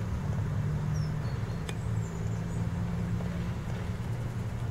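A male common blackbird bathing in a small stone basin, its wings splashing and flicking water, faint over a steady low hum.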